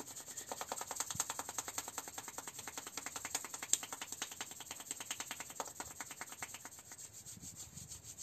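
Palms rubbed briskly together in quick back-and-forth strokes, growing fainter toward the end.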